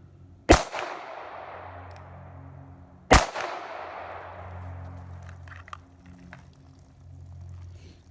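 Two shots from a .22 Magnum handgun, about two and a half seconds apart, each sharp crack trailing off in a long echo.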